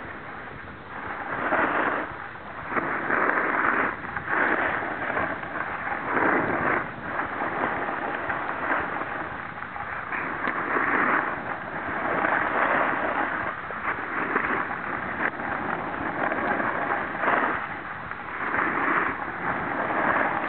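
Snow hissing and scraping under a snowboard's edges as it slides down a groomed slope. The sound swells and fades every second or two with the turns.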